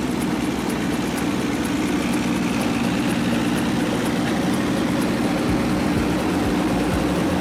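A steady vehicle running sound: an even hum with rolling noise and no changes in pace, from a ride-on toy car in motion.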